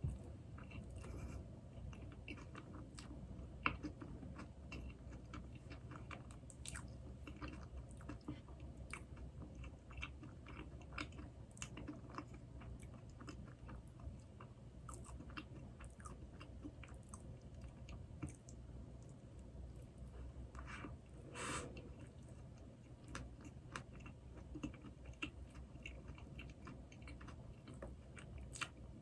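Close-miked chewing of soft glazed doughnuts, with many small wet mouth clicks throughout. A brief louder noise comes about two-thirds of the way through.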